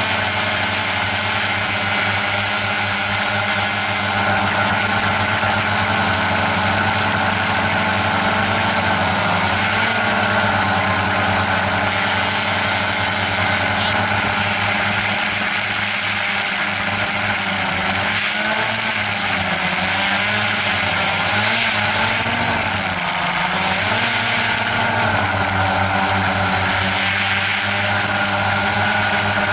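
Drone's electric motors and propellers whirring steadily as it flies, the pitch wavering up and down now and then as the motors adjust, most clearly past the middle.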